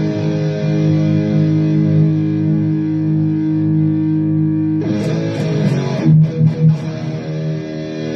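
Electric guitar played through the Donner Arena2000 multi-effects pedal on its Mesa Rectifier amp model, with the intelligent noise gate on. A chord rings for about five seconds, then a few picked notes and a change to another sustained chord.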